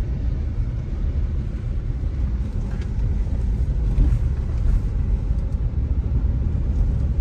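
A car driving along a road, heard from inside: a steady low rumble of engine and tyres.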